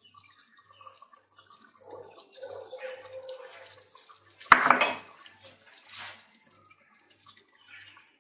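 A pot of artichoke and broad bean stew simmering, with small bubbling pops and crackles, and one sharp knock about four and a half seconds in.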